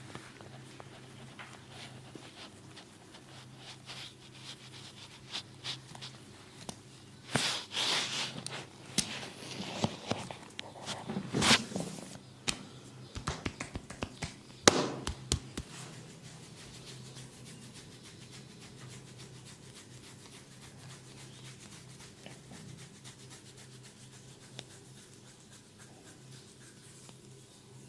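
Hands massaging a person's body: skin rubbing and a run of sharp slaps and clicks for several seconds in the middle, the two sharpest about halfway through, then it goes quiet apart from a low steady hum.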